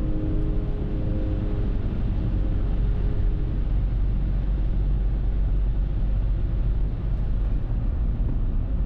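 Car driving in the rain: steady low road and tyre noise.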